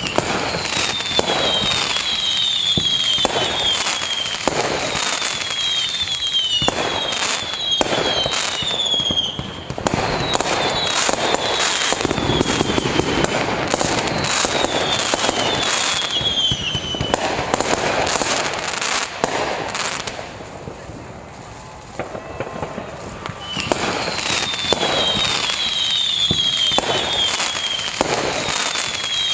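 Fireworks display: a dense run of bangs and crackling, with runs of short whistles that fall in pitch, easing off briefly about two-thirds of the way through before building again.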